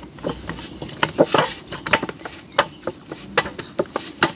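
Hands kneading avocado dumpling dough in a stainless steel bowl: irregular knocks and clicks as the dough and fingers strike and press against the metal bowl, some with a short ring.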